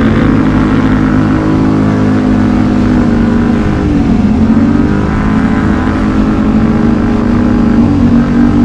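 ATV engine running under way on a trail, its pitch dropping about four seconds in as the revs fall, then climbing back as it accelerates again.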